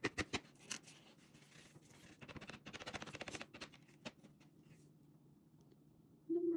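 Quiet handling sounds: a few sharp clicks in the first second, then a soft rapid crackle from a plastic piping bag being squeezed as icing dots are piped onto a cookie.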